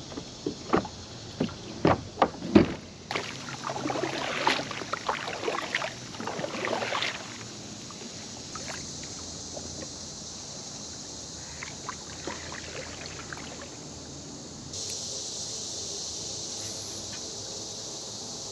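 Knocks and thumps on a plastic fishing kayak's hull as the angler moves about and stands up, followed by a few seconds of rustling and water noise. A steady high insect hiss comes up near the end.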